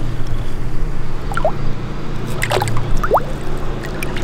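Water dripping and plopping as a largemouth bass is released back into the lake: a few short, rising, bubbly plinks from about a second and a half in, over a steady low hum.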